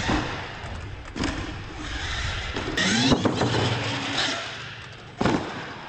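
Radio-controlled monster truck driving and jumping on wooden ramps: its motor revs up in short rises, and several thuds mark landings and hits on the ramps.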